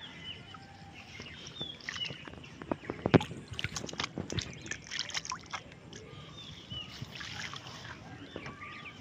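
Water splashing and sloshing as a mesh net bag of caught fish is dipped and swished in shallow pond water, with a run of splashes from about two and a half seconds in and the sharpest one just after three seconds. Small birds chirp throughout.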